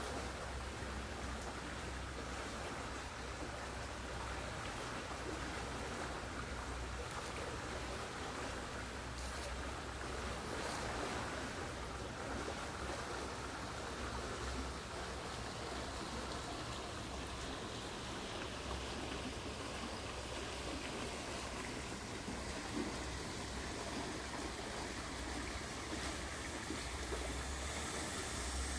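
Shallow stream flowing with a steady bubbling of water, with a steady low rumble underneath.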